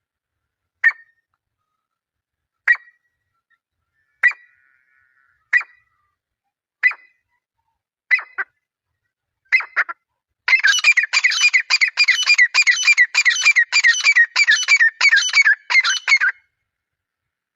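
Grey francolin calling: single sharp notes spaced a second and a half or so apart, coming slightly faster as they go, then about ten seconds in a loud rapid run of repeated phrases, about two a second, that lasts some six seconds and stops suddenly.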